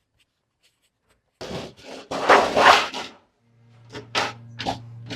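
Silence, then homemade electronic music starts: a cluster of loud noisy swooshes about a second and a half in, then a steady low synth bass note with short noisy percussion hits over it.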